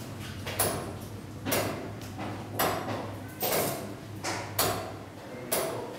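Weight-driven turret clock mechanism from 1597 ticking, its escapement giving a sharp knock about once a second, each with a brief ring after it.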